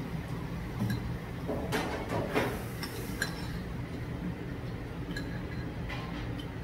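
A metal spoon clinking and scraping against the inside of a heavy black pot as rice is scooped out. It is a few scattered clinks with a busy run of scrapes about two seconds in, over a steady low room hum.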